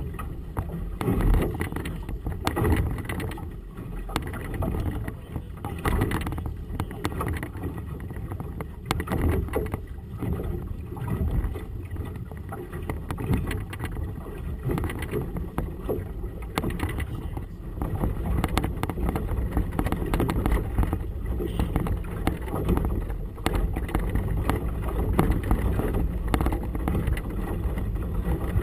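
Gusty wind rumbling on the microphone of a camera aboard a boat on choppy water, with the water washing and splashing around the hull. The gusts come and go unevenly, a little stronger in the second half.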